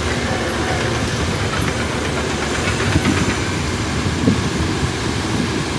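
Heavy earthmoving machinery running: a steady diesel engine rumble with clanking, and two louder knocks about three and four seconds in.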